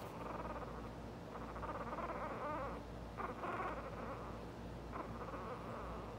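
Newborn miniature poodle puppies making soft, high, buzzy whimpers in several short stretches of about a second each, one wavering in pitch. A low steady hum runs underneath.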